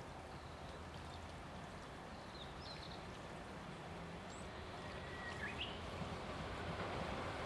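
Distant 413/475-series electric multiple-unit train approaching on the line, a low rumble that grows steadily louder as it nears.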